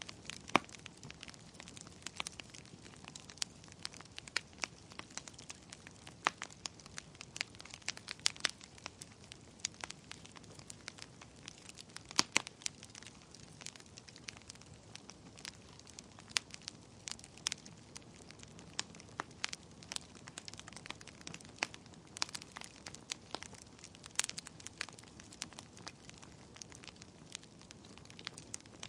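Wood fire in a fireplace crackling, with irregular sharp pops and snaps, a few of them louder, over a soft steady hiss of the flames.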